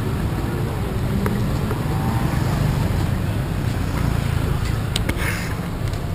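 City street noise: a steady low rumble of passing traffic, with a few short clicks and a brief hiss about five seconds in.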